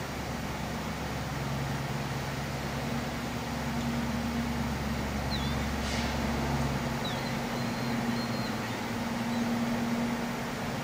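Low, steady engine drone of the bulk carrier Redhead under way close by, a hum that swells and fades slowly over an even outdoor noise. A deeper rumble underneath drops away about seven seconds in, and a few faint high chirps come about halfway through.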